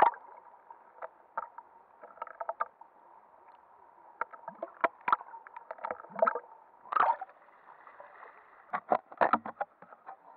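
Muffled underwater sound from an action camera in its waterproof housing: a faint steady hiss broken by scattered sharp clicks and knocks, some in quick clusters.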